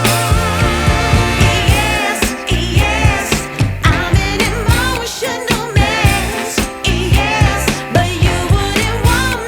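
Background music: a song with a steady beat and a singing voice.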